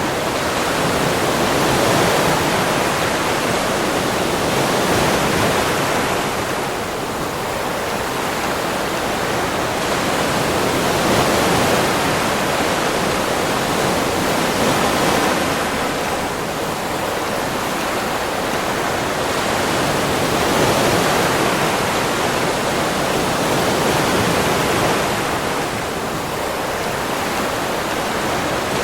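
Sea waves breaking on a beach: a continuous wash of surf that swells and eases every few seconds.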